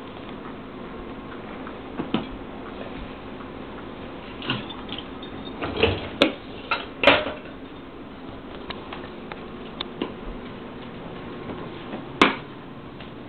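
Dishes and cutlery clinking and knocking now and then as they are loaded into a dishwasher: a scattered series of sharp clicks and clatters, the loudest about halfway through and again near the end.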